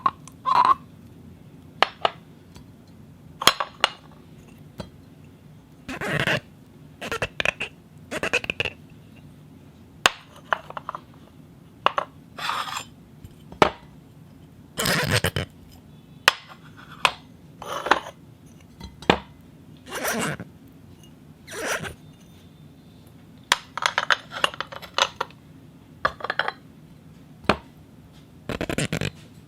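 A string of short, irregular foley noises, scrapes, squeaks and clinks with brief clicks between them, made to stand in for animals chattering to each other.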